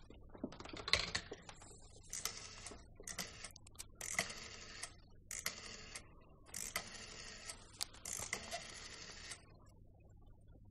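Rotary telephone dial being turned and let whirr back, digit after digit. There are several short clicking runs about a second apart before it stops.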